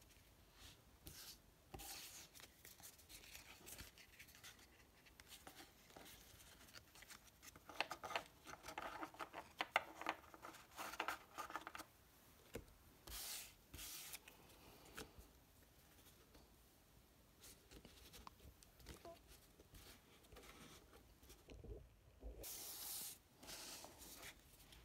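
Faint rustling, flicking and soft slaps of Pokémon trading cards being sorted by hand and laid down on a wooden table, busiest around the middle, with a few brief swishes later on.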